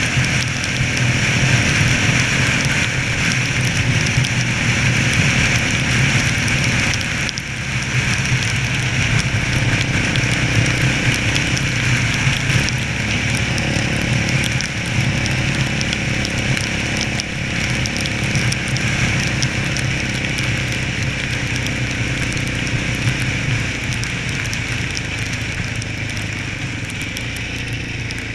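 Yamaha Raptor 700's single-cylinder four-stroke engine running steadily while the quad travels along a snowy road, under a steady noise of wind and tyres.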